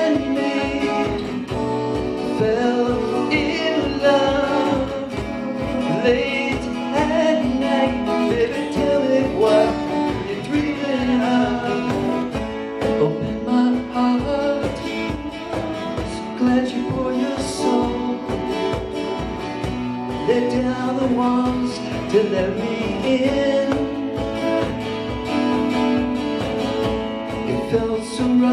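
A live acoustic band plays: two acoustic guitars strum over a steady cajon beat, with a man singing.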